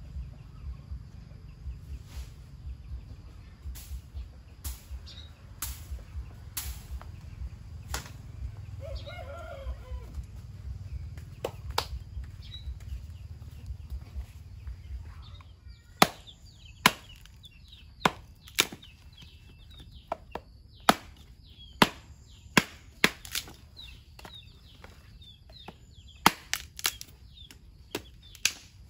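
Sharp knocks of a knife chopping on a cutting board. They are scattered at first, then come louder and quicker from about halfway, roughly one or two strokes a second. A low rumble runs under the first half and fades out.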